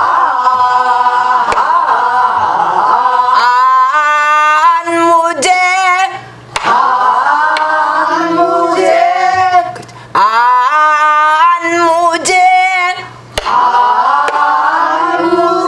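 Pansori singing: voices draw out the syllable 'ha' in long, wavering held notes that bend up and down, phrase after phrase, with short breaths between. A buk barrel drum is struck sharply a few times under the singing.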